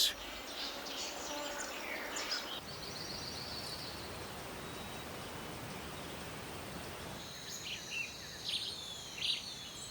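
Rainforest ambience: a steady background hiss with scattered high bird chirps, and a livelier run of short, high bird calls over the last two seconds or so.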